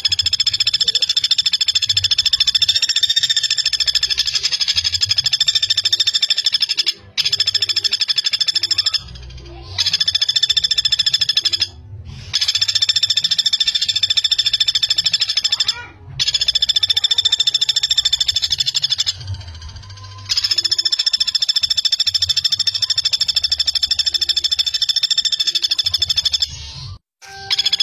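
Common flameback woodpecker (pelatuk bawang) calling in long, fast rattling trills, each several seconds long and broken by short pauses.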